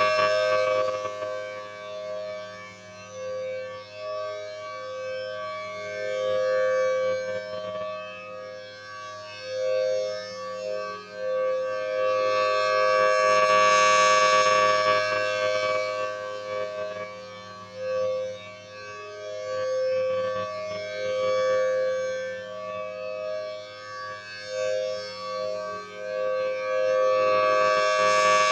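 Federal Signal Thunderbolt 1000T outdoor warning siren sounding a steady two-tone chord on test. It swells and fades as the rotating head turns, loudest about every fourteen seconds.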